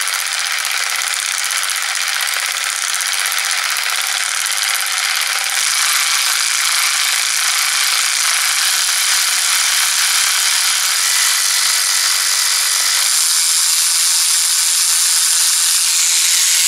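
Avid Power 12V cordless 3/8" ratchet wrench running with no load, its small motor and gear head whirring with a light rattle at a slow, trigger-controlled speed. The sound gets louder about six seconds in and holds there.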